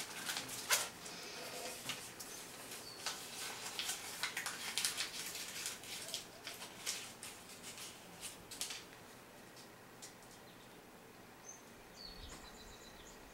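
A crumpled paper ball crinkling and crackling as it is rustled and played with on a wooden floor for a puppy's retrieve test, the crackling stopping about two thirds of the way through. A few faint high chirps come near the end.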